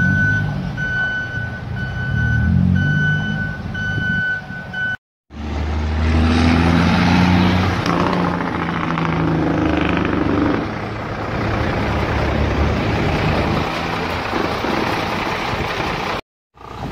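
A reversing alarm beeping about once a second in a steady high tone over a diesel truck engine. After a cut, a truck engine runs with loud road and wind noise while driving.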